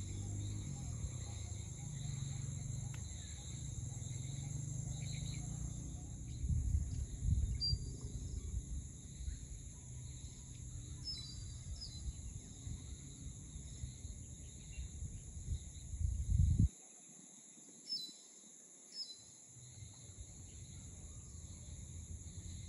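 Outdoor ambience: a gusty low rumble of wind on the microphone over a steady high drone of insects, with a few short bird chirps. The rumble stops suddenly about two-thirds of the way in, leaving the insects and birds.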